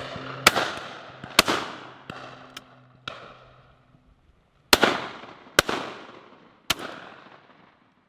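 Shotgun shots at driven game birds, each followed by a rolling echo: a quick pair a bit after the start, another pair and a single shot in the second half, with fainter shots from guns further down the line in between.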